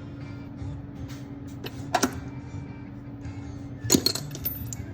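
Faint radio music under a steady low hum, with a sharp metal click about two seconds in and a cluster of louder clanks and knocks near the end.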